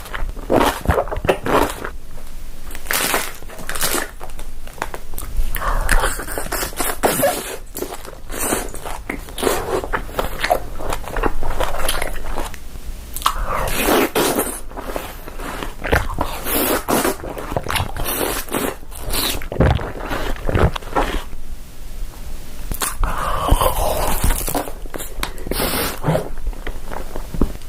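A person eating: repeated crunching bites and chewing of food, heard close up in irregular runs.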